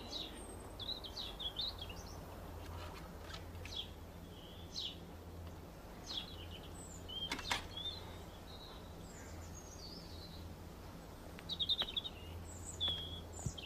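Small garden birds chirping in short, high, scattered calls over a faint low steady hum, with a single sharp click about seven seconds in.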